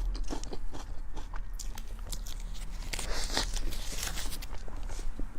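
A person biting into and chewing crisp food close to the microphone: a quick run of small, sharp crunches.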